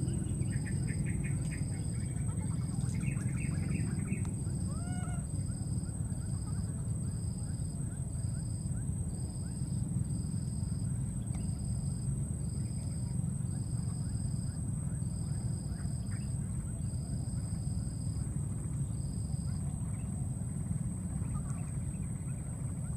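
Outdoor ambience: a steady low rumble, with a high pulsing chirp repeating about once a second that stops a few seconds before the end. A few short high animal calls sound in the first five seconds, the clearest a brief rising-and-falling call about five seconds in.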